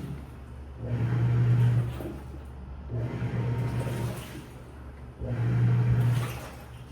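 Washing machine running, its motor hum and drum noise swelling and fading in a regular rhythm: three surges about two seconds apart.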